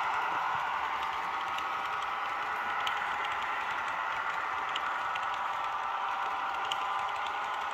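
Model railway passenger coaches rolling past on the track: a steady rattle of small wheels with scattered clicks as they cross rail joints, slowly fading.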